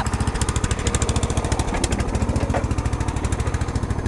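Lawn tractor's small gasoline engine running steadily at a fast, even putter, heard close up.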